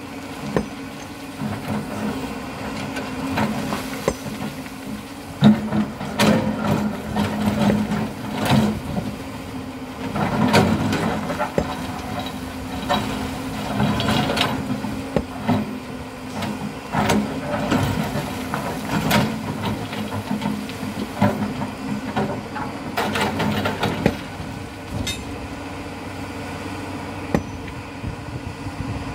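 Hydraulic excavator's diesel engine running steadily under load, with irregular sharp knocks and clanks from the bucket and arm as it works into a sand mound.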